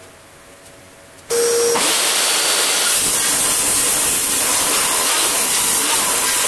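Table saw starts suddenly about a second in and runs loud and steady, its blade cutting through a thick pine board.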